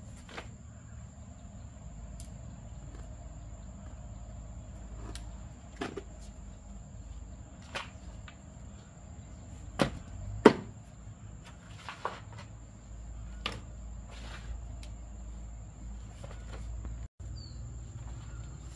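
Insects droning steadily at a high pitch over a low hum, with scattered clicks and knocks. The loudest are two knocks about half a second apart midway.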